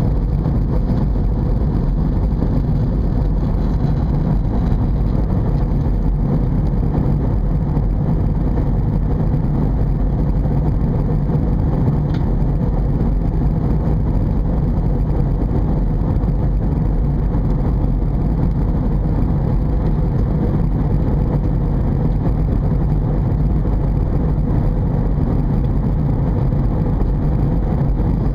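Steady rumble of airflow and engine noise inside an Airbus A320 cabin during descent, even and unchanging, with a faint steady hum.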